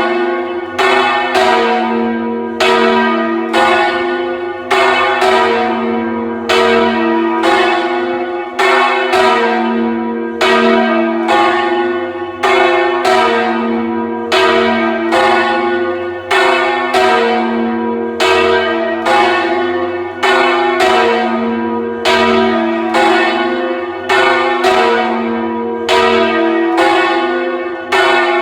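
Church bells ringing in quick succession, a new strike about every second, each one ringing on under the next. Heard loud and close from inside the bell tower.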